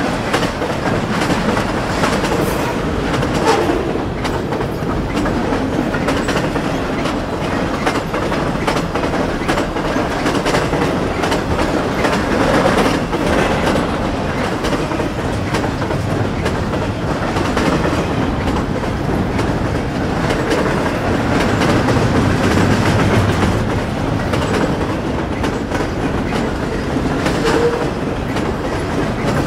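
BNSF double-stack intermodal freight train rolling past: steady noise of steel wheels on rail, with frequent clicks and clatter as the container cars go by.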